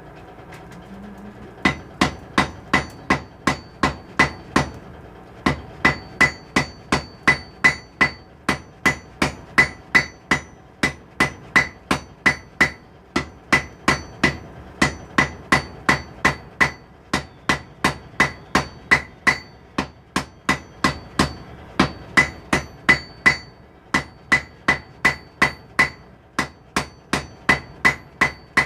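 Blacksmith's hammer striking steel on an anvil, about three blows a second in long runs with brief pauses, each blow leaving a bright metallic ring. The hammering starts about two seconds in.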